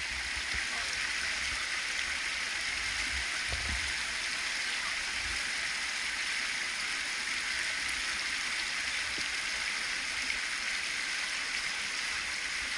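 Shallow river water rushing steadily over and between boulders, a constant rapids hiss.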